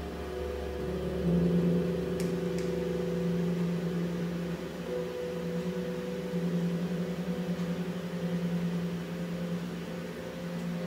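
Steady electrical mains hum from the high-current supply driving the two wires. It grows louder about a second in as heavy current starts to flow through them, with two faint clicks about two seconds in.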